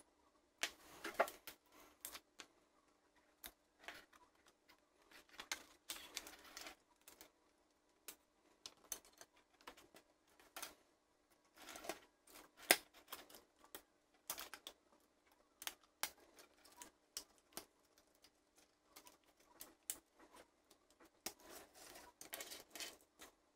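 Faint handling noise: irregular light clicks, taps and rustles as multimeter test leads, wires and the plastic toy's parts and thin metal circuit sheet are moved about on a wooden table.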